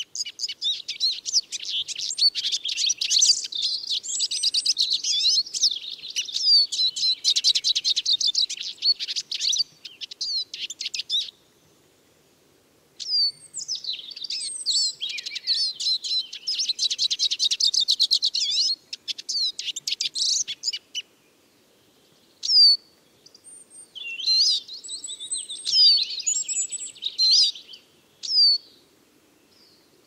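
Eurasian siskin song: a fast, continuous high twitter with sliding notes. It stops briefly twice, and near the end it thins into scattered calls and short phrases.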